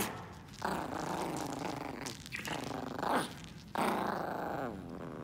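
Toy poodle puppy growling in play while tugging a stuffed toy: two drawn-out growls with a shorter one between them. A sharp click sounds right at the start.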